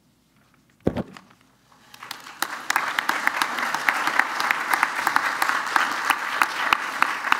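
An audience applauding, the clapping starting about two seconds in and building to a steady level. Just before, near the one-second mark, a single thump.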